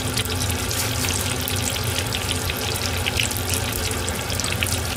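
Hot oil sizzling and bubbling steadily with fine crackles as shumai deep-fry in a small pot, over a steady low hum.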